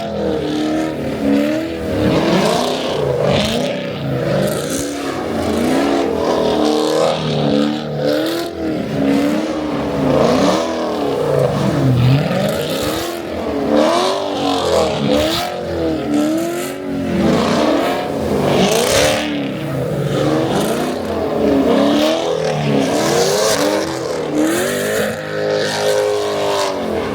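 A car engine revving up and down again and again, each rev a rise and fall lasting about a second, settling into a steadier held tone near the end.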